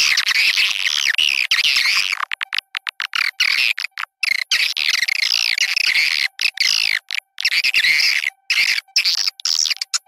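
Swiftlet call recording used as a sound-player lure for swiftlet houses: dense, high twittering chirps. They are continuous at first, then break into rapid stuttering bursts from about two to four seconds in and again near the end. A faint steady tone runs underneath.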